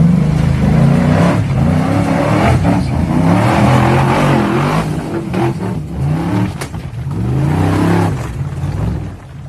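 Engine of a homemade off-road machine revving hard, its pitch climbing and dropping back again and again, about once a second, as it is driven under load.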